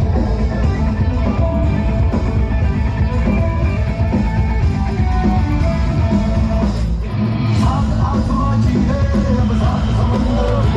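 Loud music with a steady beat, rock-like with guitar.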